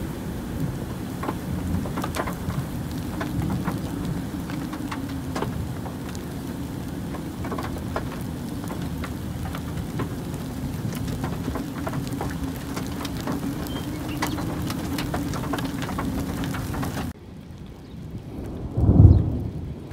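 Rain from a thunderstorm ticking on a car's roof and windshield over a steady low hum. After an abrupt cut near the end, one loud low rumble of thunder swells and fades.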